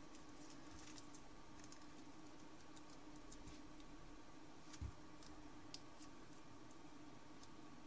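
Faint, sparse crinkles and clicks of thin origami paper being pinched and folded by hand, over a steady low hum, with one soft bump about five seconds in.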